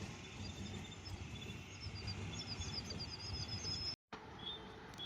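Small birds chirping outdoors: a quick run of short high chirps about two seconds in, and a single chirp after a brief cut in the sound near four seconds, over a steady low rumble of background noise.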